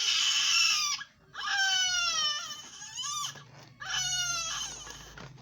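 A newborn baby crying in three bouts: a short harsh cry, then two longer pitched wails.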